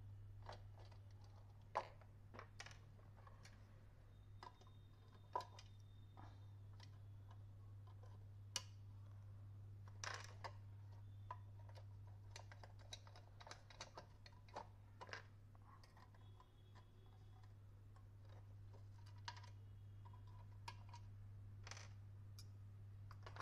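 Scattered small clicks and light knocks of a screwdriver and hard plastic parts as screws are undone and the casing of an electric iron is opened, over a steady low hum.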